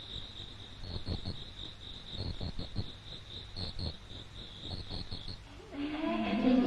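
Crickets chirping in a regular pulsed high trill, the night ambience over the lit inn. Near the end the crickets stop and voices with laughter come in.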